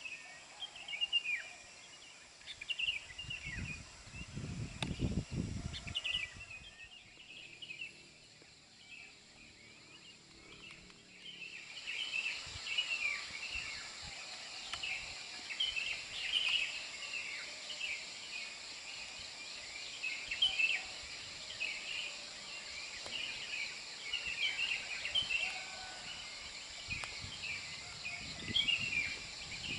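Evening outdoor wildlife: many short, high chirps come in quick, uneven runs over a steady high insect drone. The chirps drop away for several seconds after about six seconds in, then return. Brief low rumbles come about four seconds in and again near the end.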